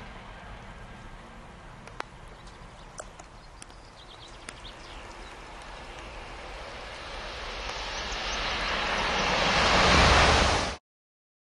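Rushing noise of a passing train, easing off and then building to a loud rush near the end before cutting off abruptly, with a few faint clicks between about two and four seconds in.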